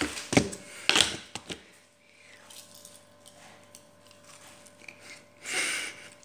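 Several sharp clicks and knocks close to the microphone in the first second and a half, handling noise as an arm moves against the phone. Near the end comes one short breathy puff.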